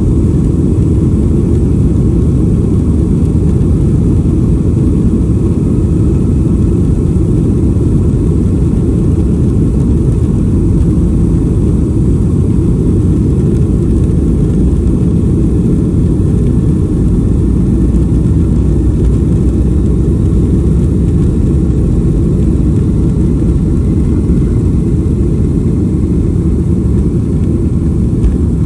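Boeing 737-800's CFM56-7B24 turbofans at takeoff thrust during the takeoff roll, heard inside the cabin behind the wing, together with the wheels rolling on the runway. It is a loud, steady, deep rumble that holds level throughout.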